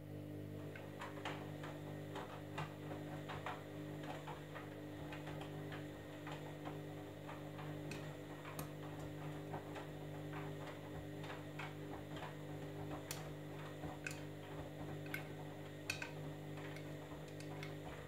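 Candy Grand'O Vita front-loading washing machine tumbling a wet load during its wash cycle: a steady drum-motor hum with scattered clicks and splashes as the clothes turn and drop in the drum.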